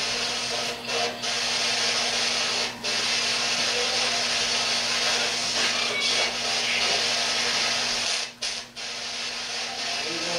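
Steady hiss of radio static from a ghost-hunting spirit box, broken by several brief dropouts: twice about a second in, once near three seconds, and twice near eight and a half seconds.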